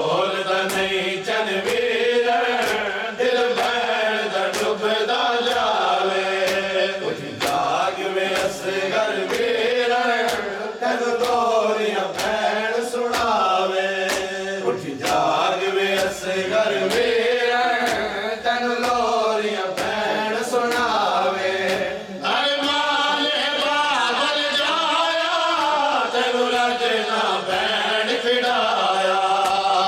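Men chanting a noha, a Shia lament: one lead voice sings the verses while a group of male voices chants with him. Under the singing runs a steady beat of sharp slaps, chest-beating (matam) keeping time.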